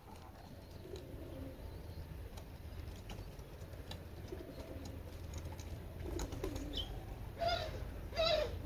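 A cat mewing: a few faint low calls, then two short, louder meows near the end, over a low hum.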